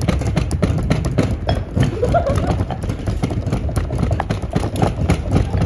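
Dense, irregular knocking from several people at once smashing and chopping fresh herbs and aromatics on boards, several strikes a second and overlapping.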